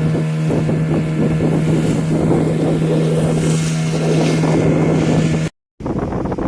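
Motorboat engine running steadily underway, with wind buffeting the microphone and water rushing past the hull. Near the end the sound drops out for a moment, and the engine drone is gone afterwards, leaving only wind and water.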